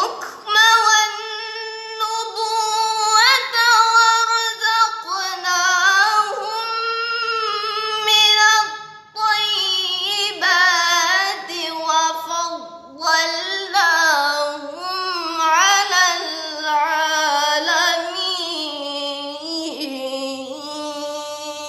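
A girl reciting the Qur'an in melodic tilawah style, one high voice drawing out long ornamented phrases with short pauses for breath. The line sinks to a lower register in the second half.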